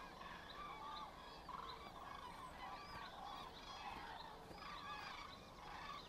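A large flock of common cranes calling over one another: many overlapping calls, some rising and falling in pitch, with no pause.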